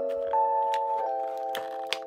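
Background music: held chords that change about a second in. Near the end come a few light clicks, which fit hands handling a clear plastic blister tray.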